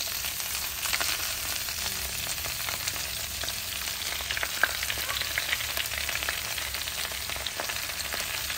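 Chopped, freshly washed leafy greens sizzling in a hot steel kadai of frying garlic and chilli paste as handfuls of leaves are dropped in. It is a steady hiss with many small crackles.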